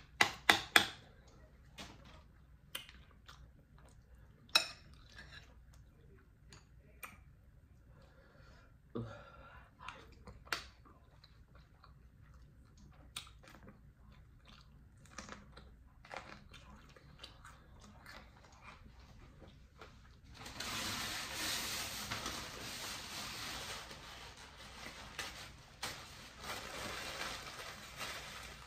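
A metal spoon clinks against a glass bowl, with a quick run of sharp clicks at the start and scattered small clicks of eating after that. About two-thirds of the way through, a paper towel starts rustling and keeps on until near the end.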